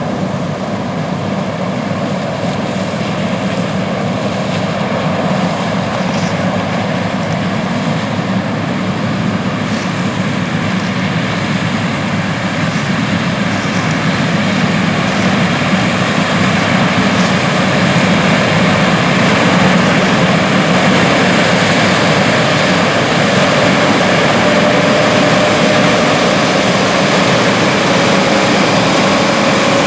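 New Holland CR8090 twin-rotor combine running steadily while harvesting corn, a continuous engine and machine noise that grows slowly louder over the first half.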